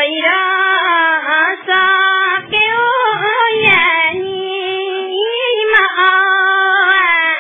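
A high voice singing a slow melody in long, wavering held notes, with brief breaks between phrases.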